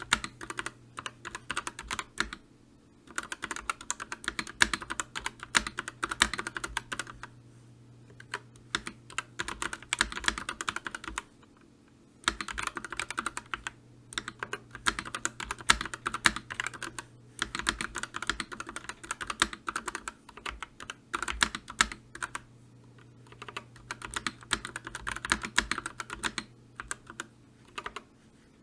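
Computer keyboard being typed on in quick runs of key clicks, broken every few seconds by short pauses.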